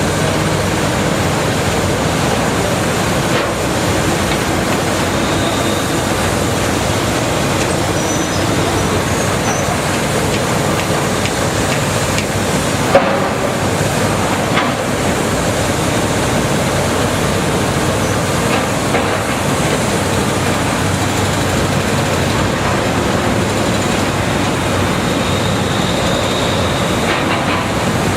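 Caterpillar 320DL hydraulic excavator working, its diesel engine running steadily under load with hydraulic noise as it digs clay. A single sharp clank stands out about halfway through.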